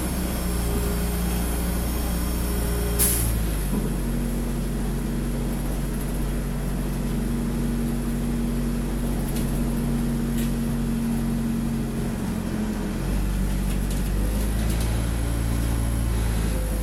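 Inside an Ikarus 405 city bus under way: the bus's diesel engine and drivetrain running steadily. A short sharp hiss comes about three seconds in, and the engine note changes soon after and again about thirteen seconds in.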